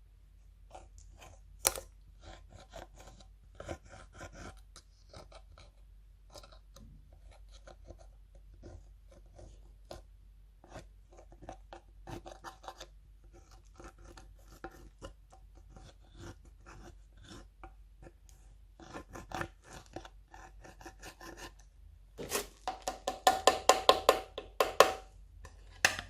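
Slime being squished and pressed by hand, giving scattered crackling clicks from trapped air, with a fast run of loud popping clicks near the end.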